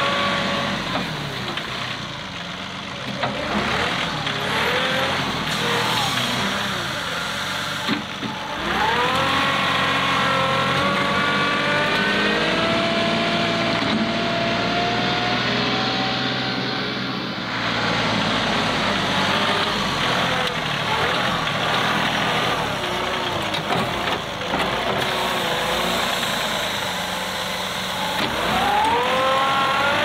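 John Deere 2038R compact tractor's three-cylinder diesel engine working a front loader: it revs up about eight seconds in, holds at high revs, drops back, and revs up again near the end.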